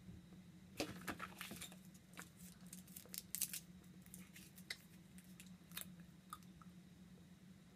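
Faint chewing of taffy together with the crackle and clicking of a small Laffy Taffy wrapper being handled and opened, in quick irregular bursts that thin out after about three and a half seconds.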